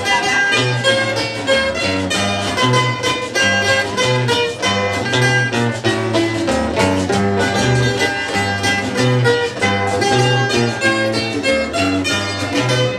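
Small live string ensemble playing lively instrumental folk music: guitars plucked and strummed over a steady, repeating bass line.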